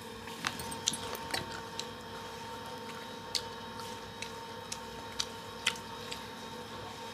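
Fingers stirring and squeezing water-soaked rice in a steel bowl: soft wet squishing with scattered sharp little clicks and clinks against the bowl, one or two a second.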